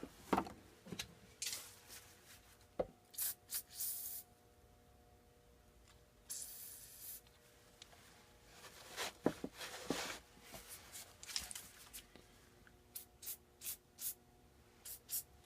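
Faint, scattered scraping, clicking and light tapping of hand tools and metal being worked on a rusted engine shaft, with one brief hiss about six seconds in.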